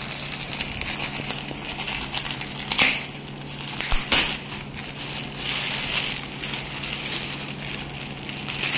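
Clear plastic wrapping crinkling and crackling as it is torn and pulled off a fabric-covered foam door draft stopper, with several sharper crackles.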